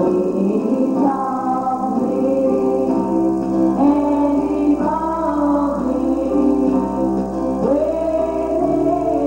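Gospel song: voices singing held, sliding notes over instrumental accompaniment.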